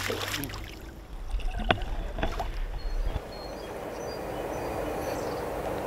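Lake water sloshing and splashing, with a few knocks, as a caught carp is put back into the water. After that comes a steady outdoor hiss.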